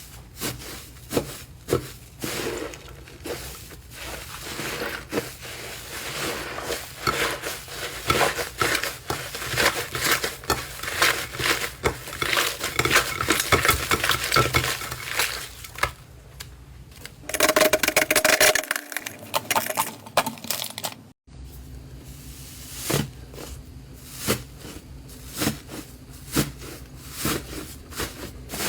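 Slime being squeezed, poked and pressed by hand: dense crackling, popping and clicking that shifts in character between clips, about 17 seconds in and again around 21 seconds.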